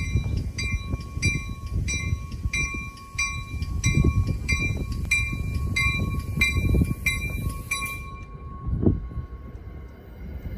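A railroad warning bell rings in even strokes, about one and a half a second, and stops about eight seconds in, over a low rumble from an arriving NJ Transit passenger train.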